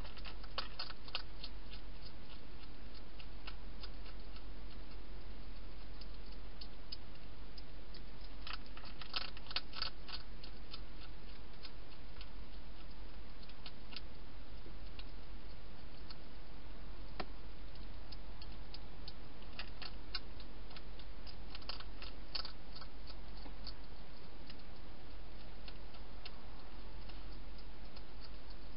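A hedgehog chewing dry food: irregular clusters of sharp clicks, thickest about a third of the way in and again past two-thirds, over a steady low hum and hiss.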